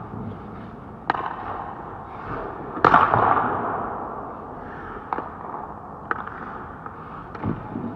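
Ice-hockey goalie's pads and skates knocking and scraping on the ice during butterfly and push drills, a few sharp knocks echoing around the rink. The loudest, about three seconds in, rings on for about a second.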